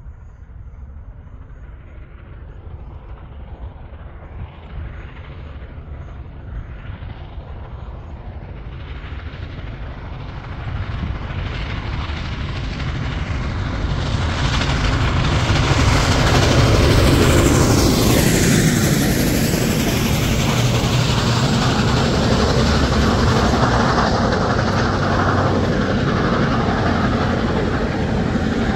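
Union Pacific 4014 Big Boy steam locomotive and its train approaching, growing steadily louder, then passing close by with a falling sweep in pitch about two-thirds of the way in. After that the cars roll past in a steady rumble.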